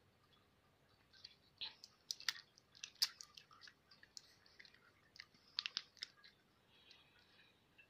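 Faint, irregular small clicks and ticks of a fidget cube's buttons and parts being fiddled with, starting about a second in and dying away near the end.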